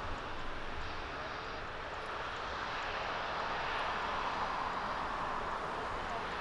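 Four Rolls-Royce Trent 900 turbofans of an Asiana Airlines Airbus A380 running at taxi power: a steady jet rush with a hiss on top.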